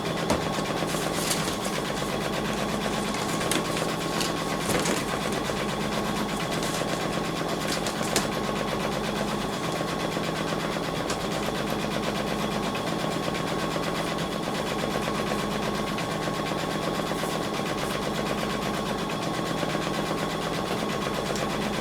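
Embroidery machine stitching, a rapid, steady needle rhythm with a constant hum and a few sharp clicks.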